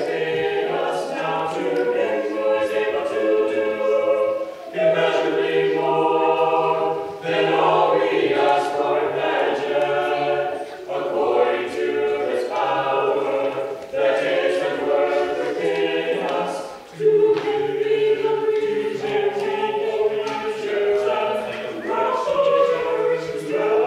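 Choir singing a cappella in several parts, in phrases a few seconds long with short breaks between.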